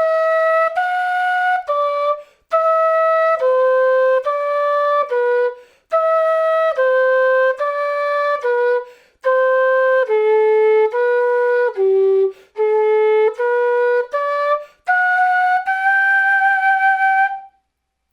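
Quena (Andean notched flute) playing a practice exercise: short articulated notes in groups of two, stepping downward, in phrases separated by brief gaps, ending on a long held note with a slight vibrato.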